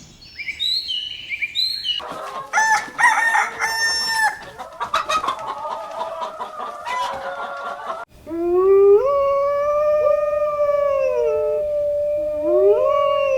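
Chickens clucking, then a rooster crowing in one long call starting about eight seconds in, with another crow beginning near the end. Brief high bird chirps come first.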